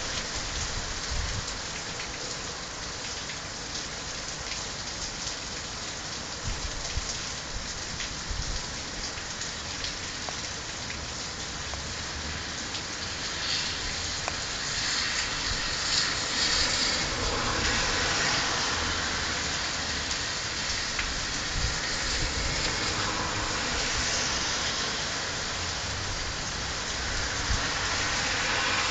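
Heavy rain falling steadily, pattering on lawns and a wet road, swelling louder for a few seconds midway.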